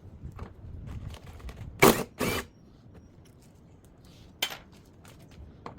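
Parts of a top-loading washing machine being taken apart with hand tools: scattered small clicks and rattles, with two loud short clanks about two seconds in and another near four and a half seconds.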